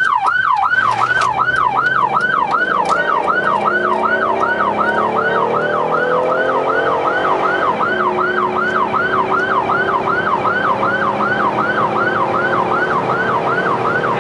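A responding emergency vehicle's electronic siren on yelp: a rapid up-and-down wail about three times a second. Beneath it the vehicle's engine note rises as it speeds up.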